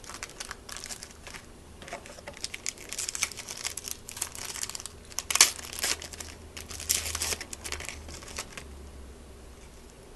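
Plastic trading-card pack wrapper crinkling and crackling as it is handled and opened, with a sharp loud crackle about halfway through; the crinkling dies away near the end.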